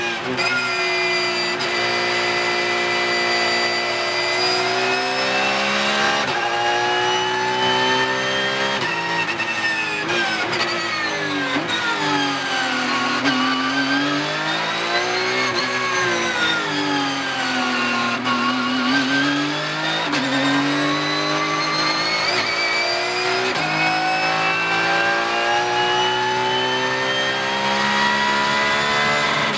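Porsche 992 GT3 Cup car's naturally aspirated flat-six engine heard from inside the cockpit, racing under load. Its pitch steps with gear changes as the car slows for a slow corner, dips and rises twice through the corner, then climbs again through a run of upshifts as the car accelerates hard back to high speed.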